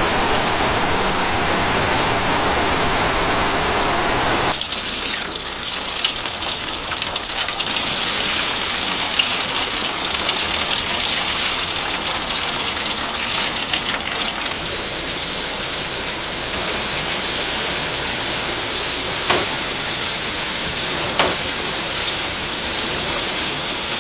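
Rain against a window pane: a steady hiss of falling rain with scattered drop ticks. About four and a half seconds in it changes abruptly from a fuller, deeper rush to a thinner, brighter patter, and a couple of sharper drop hits stand out near the end.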